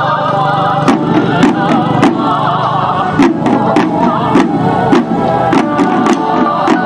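Group of Chinese waist drums (yaogu) struck with sticks in sharp strokes at an uneven rhythm, over a wavering melody played alongside the drumming.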